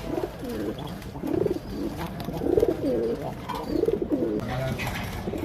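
Pigeon cooing, a run of low, bending calls repeated several times.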